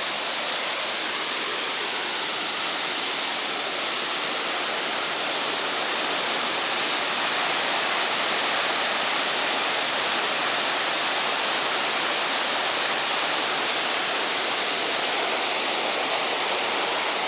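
Water pouring over a dam spillway: a steady, loud rush of falling water with no let-up.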